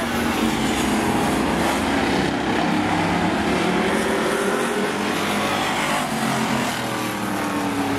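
Demolition-derby race car engines running around an oval track, revving, their pitch rising and falling.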